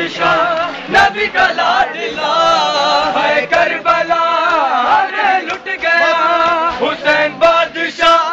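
Men chanting a noha, a Shia lament, in chorus, with long wavering held notes and a few sharp hits now and then.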